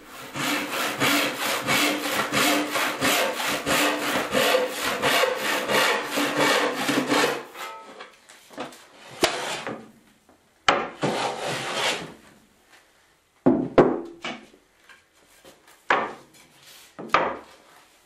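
Hand saw cutting through a glued-up walnut panel in fast, even strokes, about three or four a second, stopping about seven seconds in; after that come a few separate strokes with pauses between them.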